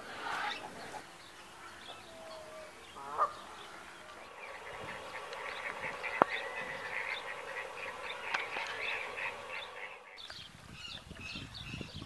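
A flock of waterfowl calling, many short honks overlapping, from about four seconds in until it cuts off abruptly near the end.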